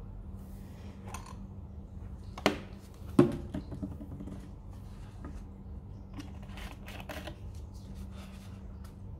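Hands handling a plastic fertilizer jug and a small glass cup: light clicks and rustles, with two sharp knocks about two and a half and three seconds in, the second ringing briefly. A low steady hum lies underneath.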